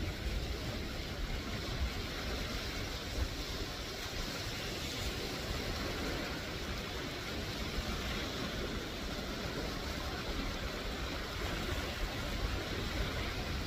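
Small waves breaking and washing among the rocks of a shallow, rocky foreshore: a steady wash of surf over a low rumble.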